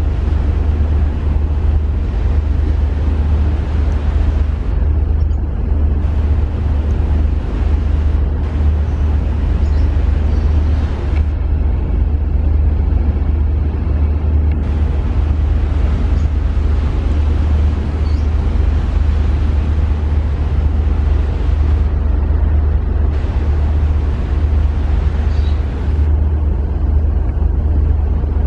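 Large car ferry's engines droning steadily on board as the ship gets under way: a deep, even rumble.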